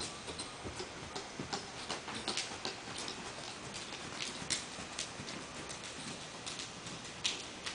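Hoofbeats of a pinto mare moving over the soft dirt footing of an indoor arena: an irregular run of light clicks and dull knocks, a few of them sharper.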